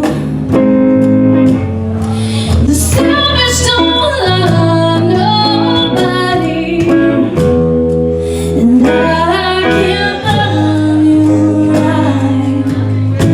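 Live duet: voices singing a slow country song over guitar.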